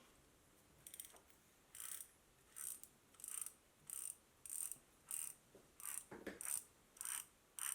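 Freshly greased Schwinn bicycle freewheel turned backwards by hand, its pawls clicking against the ratchet teeth in short runs, about one and a half a second, after starting about a second in. The ticking is the sign that the pawls are engaging through the newly packed grease.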